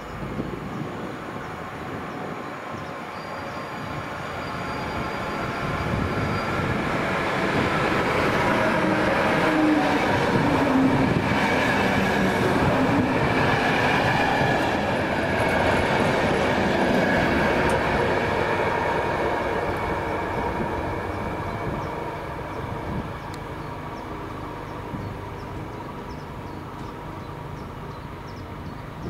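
Siemens Vectron electric locomotive and its passenger coaches passing through at speed without stopping: a continuous rumble and rattle of wheels on rail that builds over the first several seconds, stays loudest through the middle, then fades as the coaches recede.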